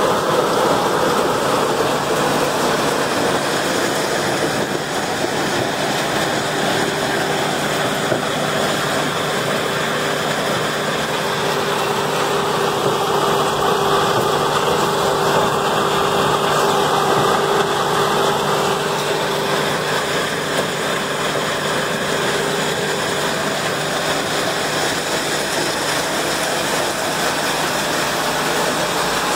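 A Packer 750 horizontal grinder running steadily while grinding wood, its engine and mill making a loud, even mechanical noise with a steady hum, as chips are thrown off the discharge conveyor.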